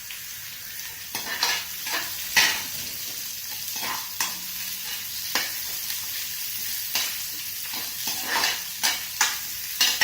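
Chopped onions sautéing in hot oil in a pan, a steady sizzle, while a spatula stirs them, knocking and scraping against the pan in a dozen or so irregular sharp strikes.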